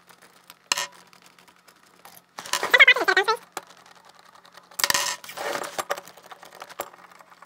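Small metal thumb screws being unscrewed from a softbox's aluminium speed ring and set down on a wooden table: a few sharp clicks and clinks. The loudest is a ringing metallic clatter with a wavering pitch about two and a half seconds in, and a second clatter follows about five seconds in.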